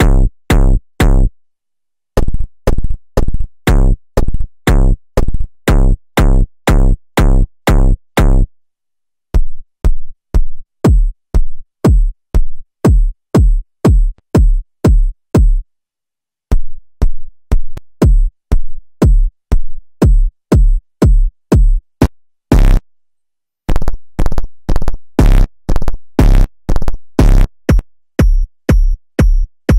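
Synthesized electronic kick drums from the Kick One kick-synthesizer plugin, played in steady runs of about one and a half to two hits a second. Each hit is deep with a quickly falling pitch, some with a sharp click on top. Short pauses come about every six or seven seconds, and the tone of the kick changes from one run to the next as hardstyle and techno presets are tried.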